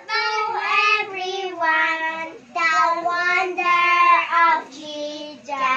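Young girls singing a song in phrases of long held notes, with short breaks between phrases.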